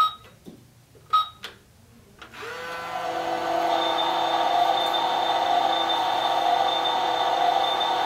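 Toy microwave oven: two button beeps, then a steady electronic humming run sound that starts about two seconds in, rising briefly in pitch before settling, with a thin high tone over it, as its cooking timer counts down.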